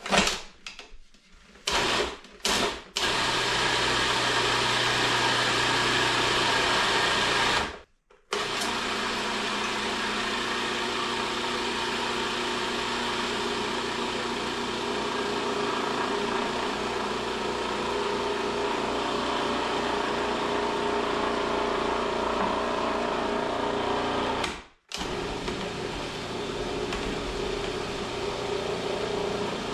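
Food processor motor running, its blade churning crumbly pasta dough. It gives a few short pulses at first, then runs steadily, stopping briefly twice, about eight seconds in and again near the end, while water is added to bring the dough together into a ball.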